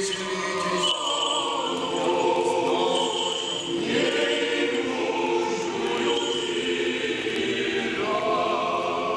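Orthodox church choir singing a slow funeral chant in long held chords, the chord shifting about a second in, around four seconds in, and again near the end.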